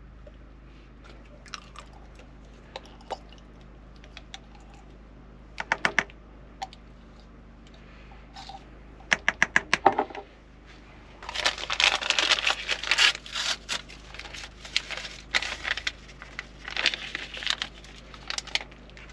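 Food preparation in a small kitchen: a spoon clicking and scraping against a mayonnaise jar and a plastic bowl of cooked pasta, then, from about halfway, a long stretch of tearing and crinkling from a paper seasoning packet mixed with stirring. A faint steady low hum lies underneath.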